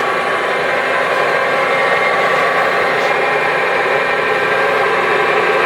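ENCO 13 x 40 inch bench lathe running under power, its motor and gear train giving a loud, steady whine made of several fixed tones.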